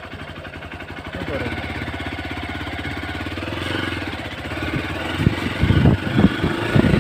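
Hero XPulse 200's single-cylinder engine running at a low steady idle, picking up a little about a second in, then rising and falling in uneven louder surges over the last couple of seconds.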